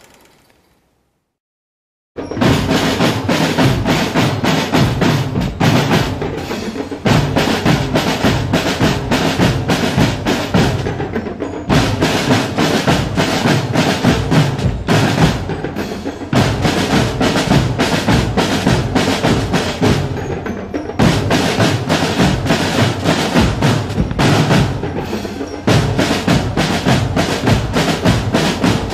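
Marching drum corps playing a percussion cadence on snare and bass drums, with rolls and rapid strikes. It starts suddenly after about two seconds of near silence and runs in phrases, with short breaks between them.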